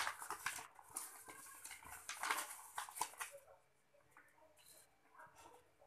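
A sheet of paper rustling and crinkling as it is unfolded and smoothed by hand, busiest for the first three seconds, then much quieter.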